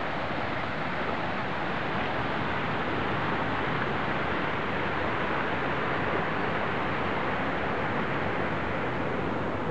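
Steady rush of water from a pool's rock waterfall spilling into the pool, an even, unbroken noise.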